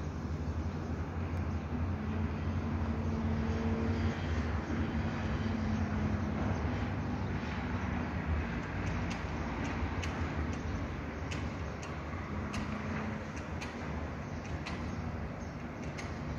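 Steady low rumble of city traffic and machinery with a faint hum, and a few short high ticks in the second half.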